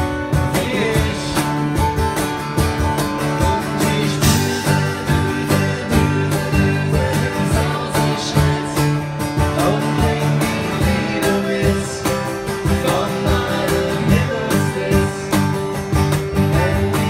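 Live acoustic band playing: acoustic guitars strummed and picked over a steady percussive beat.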